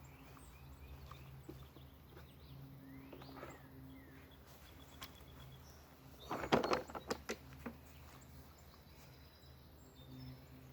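A Worx 14-inch battery lawn mower being handled and set down: a quick run of clattering knocks about six seconds in. Faint bird calls and a steady low hum sit underneath.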